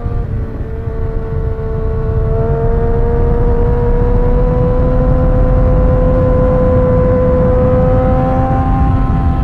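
Sport motorcycle engine running at high revs at highway speed, its pitch creeping slowly upward as the bike pulls steadily, with heavy wind rumble on the onboard microphone. The level dips briefly in the first second or so, then holds.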